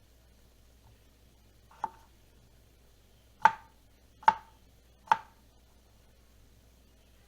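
Knife striking a cutting board: one light chop, then three harder chops spaced under a second apart, each with a brief ring.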